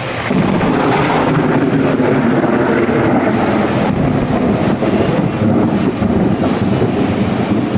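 Heavy rain pouring down hard, a loud steady hiss with a low rumble beneath it, growing louder about a third of a second in.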